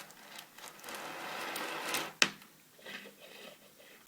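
Coins being handled and picked out of a pile: about a second of rustling, then a sharp click, with a louder click near the end.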